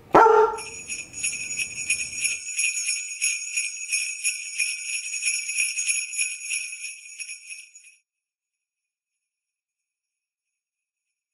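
A dog barks once at the very start, then jingle bells shake in a steady rapid jingle for about seven seconds and cut off abruptly.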